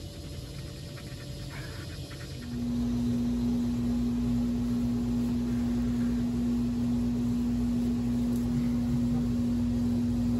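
Faint clicks from a hand-held syringe pumping gear oil into a differential. About two and a half seconds in, a steady mechanical hum comes in and holds.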